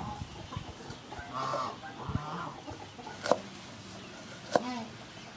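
Two sharp chops of a cleaver through a piece of root down onto a wooden chopping board, about three and four and a half seconds in, with chickens clucking in the background.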